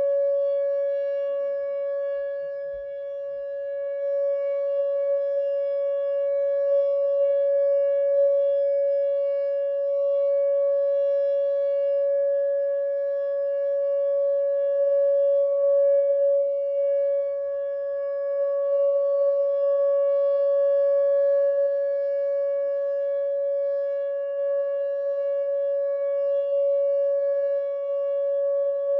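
Whelen WPS 2909 electronic outdoor warning siren sounding a steady tone at one constant pitch, its loudness slowly swelling and fading.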